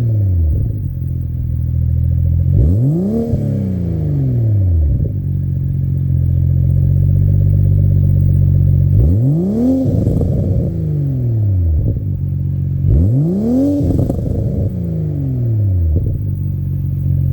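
A Toyota GR Supra's B58 turbo inline-six, breathing through a single-exit titanium cat-back exhaust, idling and being blipped three times. Each rev climbs quickly and falls straight back to idle.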